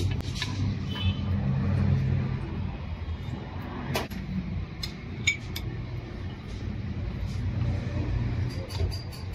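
A few sharp metallic clicks and small clinks from diesel injection pump parts being handled and set in place, over a steady low rumble.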